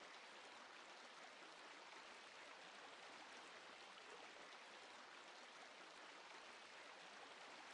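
Near silence: a faint, steady hiss with no events in it.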